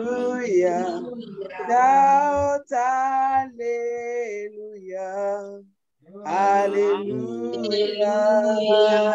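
A woman singing a slow worship song unaccompanied, in long held phrases, with a short break about six seconds in.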